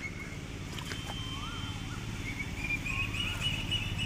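Outdoor pond-side ambience: a bird gives short rising-and-falling whistles about every one and a half seconds over a steady high insect-like drone and a low hum. A couple of sharp knocks come about a second in, as the caught fish goes into a plastic bucket of water.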